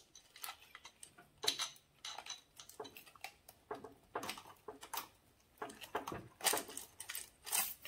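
Metal engine parts and hand tools clinking and tapping at irregular intervals as an engine is being taken apart, the loudest clinks near the end.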